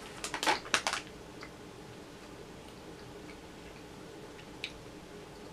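Someone handling and starting to eat gummy fruit snacks: a quick run of sharp clicks and crinkles in the first second, then only a few faint ticks over quiet room tone.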